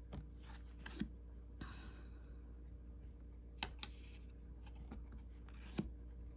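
Thin, glossy cardstock cards being flipped through by hand: a few faint clicks as card edges snap against the deck, with a soft sliding rub about one and a half seconds in.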